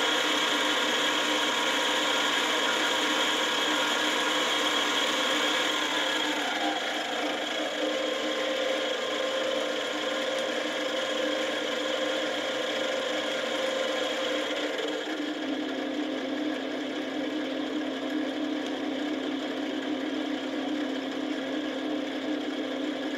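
Sieg X3 mill's DC spindle motor and drive running with a steady whine. It steps down in pitch twice as the speed is lowered: from about 2,200 to about 1,200 RPM six to eight seconds in, then to about 600 RPM about fifteen seconds in.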